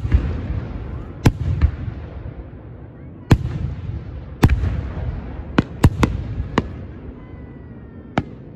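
Fireworks shells bursting overhead: about ten sharp bangs at uneven intervals, some close together in quick pairs, each followed by a rolling low rumble.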